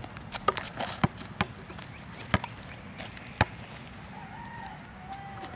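A basketball bouncing on an asphalt court and being caught: several sharp slaps at uneven intervals in the first three and a half seconds, then a faint wavering call near the end.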